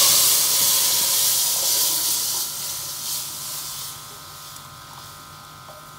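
Hot oil with ajwain seeds sizzling as a thin besan (gram-flour) mixture is poured into it. The hiss is loudest at the start and dies down over about four seconds to a low steady sizzle as the batter cools the oil.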